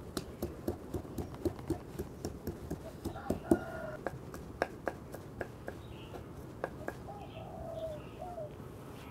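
Large kitchen knife chopping garlic on a thick round wooden chopping board, making irregular sharp knocks several times a second. Faint animal calls are heard a few times in the background.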